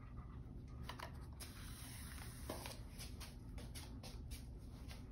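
Faint rustling and soft scratchy ticks of hand-sewing: a needle pushed through quilted cotton binding and thread drawn through the fabric, over a low room hum.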